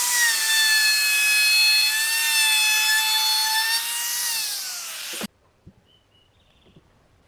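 Handheld electric plunge router shaping the edge of a wooden table leg: a loud, steady high-pitched motor whine with the hiss of the bit cutting wood. About four seconds in, the whine falls in pitch, and about a second later the sound cuts off abruptly.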